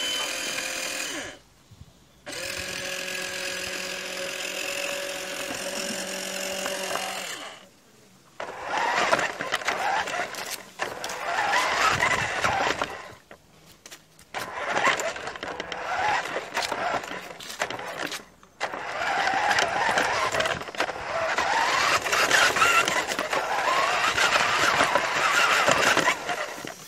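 Nikko RC toy tip truck driving: its small electric motor and gearbox whine steadily for the first several seconds, then the run turns into a dense rattling clatter. The sound cuts out briefly several times as the motor stops and starts again.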